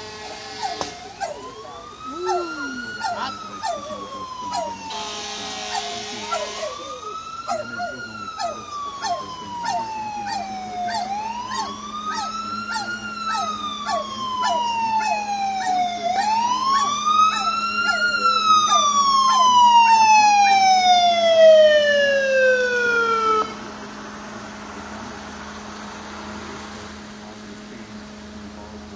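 Fire engine siren wailing, rising quickly in pitch and falling slowly about every five seconds. It grows louder as it approaches, then cuts off suddenly a few seconds before the end.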